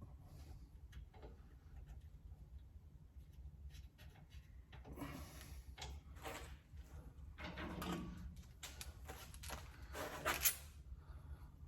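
Scattered clinks, scrapes and knocks of metal car parts being handled and fitted during work on a drive shaft. It is quiet at first, then busier from about five seconds in, with the sharpest knock near the end.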